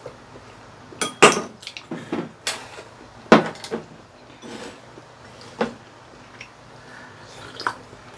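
Eating utensils, a metal spoon and chopsticks, clinking against ceramic bowls: a scattering of short, sharp clinks, the loudest a little over a second in and about three seconds in.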